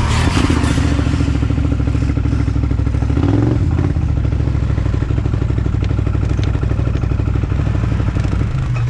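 Quad bike (ATV) engine running steadily under load, heard from on the machine as it crawls through mud, with a brief rise in revs about three seconds in. Some clatter of the machine runs with it.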